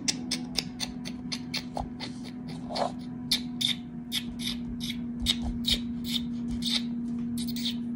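Irregular, sharp little clicks and taps of small hard objects, about three or four a second, over a steady low hum.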